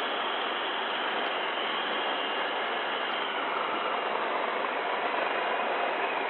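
Steady helicopter noise, the engines and rotor running in a hover, heard as a continuous even rush on the aircrew's intercom audio.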